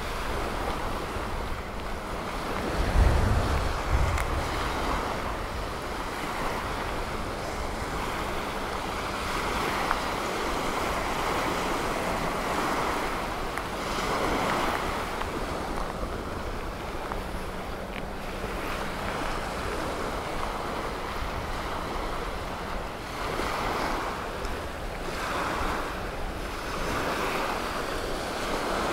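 Gulf surf washing onto a sandy beach, the wash swelling and easing every few seconds. Wind buffets the microphone about three seconds in.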